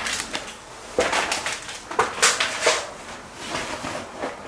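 Irregular crunching, knocking and rustling of a person moving about and handling things, with a few sharper knocks about one, two and two and a half seconds in.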